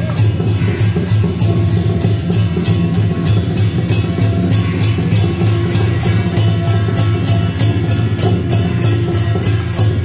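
Temple procession music, loud, with drums and other percussion keeping a fast, steady beat.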